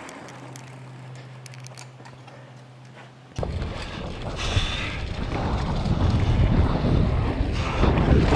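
Wind rushing over the microphone as a mountain bike descends at speed. It starts suddenly about three and a half seconds in and grows steadily louder. Before that there is a quieter stretch with a steady low hum and a few light clicks.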